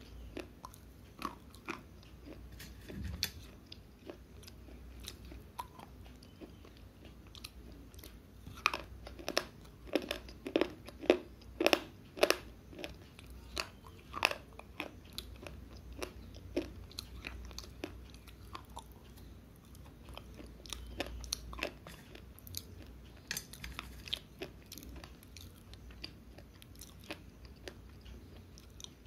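Dry Balak-brand slate pencil pieces bitten and chewed right at a small clip-on microphone held to the mouth: a long run of sharp, crisp cracks at uneven spacing, thickest and loudest about ten to thirteen seconds in.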